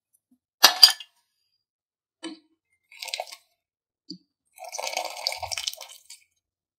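Metal slotted ladle clinking against a pot and a glass bowl as boiled noodles are scooped out of their cooking water, with water splashing. The loudest is a sharp clink about a second in, followed by a few lighter clinks and then a longer spell of splashing and spoon sounds near the end.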